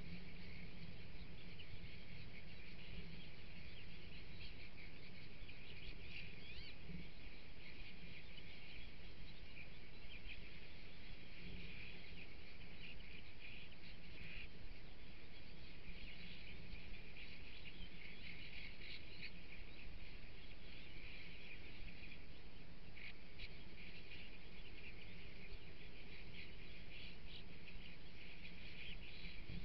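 A feeding flock of bramblings calling continuously: a dense chatter of short, overlapping high calls, over a steady low background noise.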